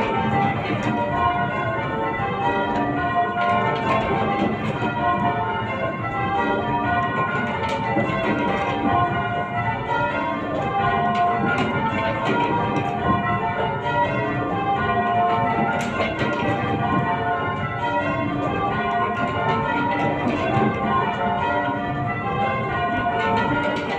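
A ring of eight church bells being change-rung, the bells striking one after another in an unbroken, even stream.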